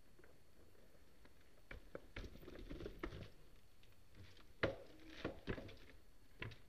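Mountain bike riding onto a wooden teeter-totter skinny: a run of irregular clicks and knocks from tyres and bike on the wooden planks, the loudest about four and a half seconds in.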